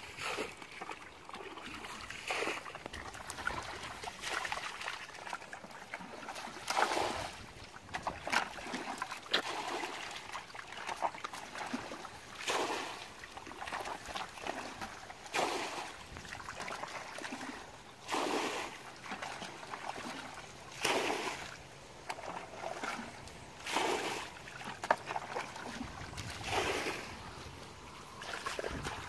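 Hands splashing and squelching in shallow muddy water while feeling for fish in the mud, with short splashes every two or three seconds.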